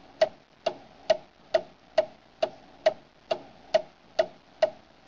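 Clock ticking steadily, one sharp tick a little more than twice a second, evenly spaced.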